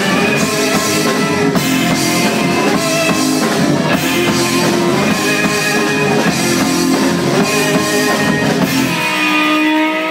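Live rock band playing loud, with electric guitars, keyboard and a drum kit. About nine seconds in the drums stop and a held chord rings out as the song ends.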